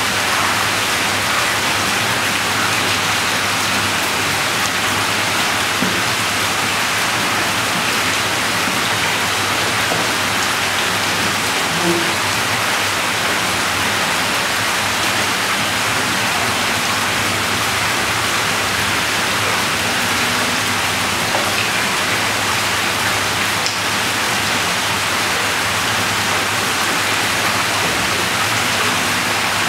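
Steady rush of running water, even throughout, with a faint low hum underneath.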